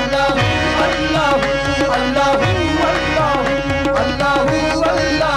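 Qawwali music: tabla playing a steady rhythm under a held harmonium drone note, with a gliding vocal melody line above.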